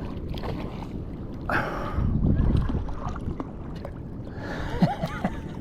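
Wind buffeting the microphone over moving water, with a low rumbling wash and scattered small clicks; faint distant voices near the end.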